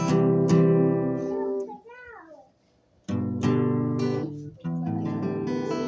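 Acoustic guitar strummed, the chords left to ring, with a pause of about a second part-way through and a short gliding sound in the gap.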